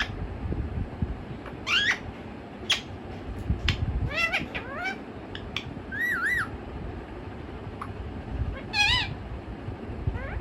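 Pet parakeet squawking and calling: a series of short upward-gliding squawks, a wavering whistle about six seconds in, and a louder squawk near the end, with a few sharp clicks between.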